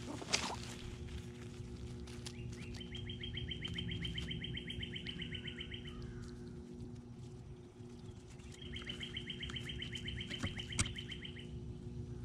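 A songbird singing a rapid, even trill of repeated notes, twice, each trill about three seconds long, over a low steady hum.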